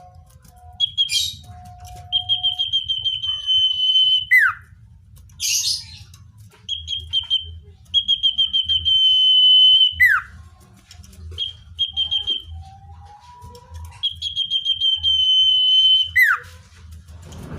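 Common iora singing: rapid trills on one high pitch, each held for a second or two, broken about every six seconds by a sharp down-slurred whistle. A faint low rumble runs underneath.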